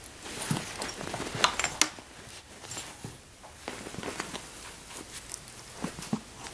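A cat rolling and scrabbling on carpet: scattered light scratching and rustling, with a few sharper clicks about one and a half to two seconds in.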